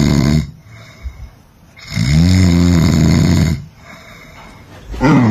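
A sleeping person snoring. One snore trails off at the start, a full snore of about a second and a half comes about two seconds in, and the next begins near the end, with quieter breathing between.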